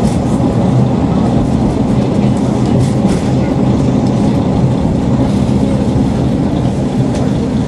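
Inside a Kashima Rinkai Railway diesel railcar: steady engine hum and rail rumble as the train pulls into a station alongside the platform.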